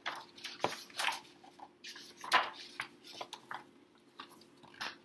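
Pages of a hardcover picture book being turned and handled: a series of short paper rustles and flaps, the loudest a little over two seconds in, with a soft knock about half a second in.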